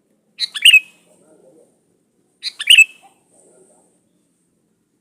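Sooty-headed bulbul (kutilang) singing: two short phrases of quick, loud notes about two seconds apart.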